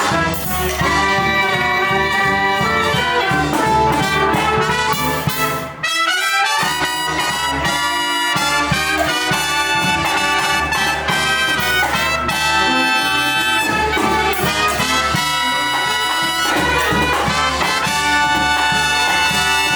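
A live brass band playing a lively tune, trumpets and trombones carrying the melody over a steady beat, with a brief pause about six seconds in.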